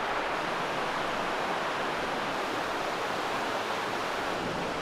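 Water running steadily with an even rushing sound.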